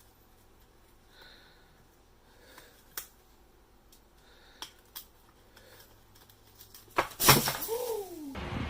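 A few faint light taps, then about seven seconds in a loud crash as an object falls and hits the floor, followed by a short falling tone.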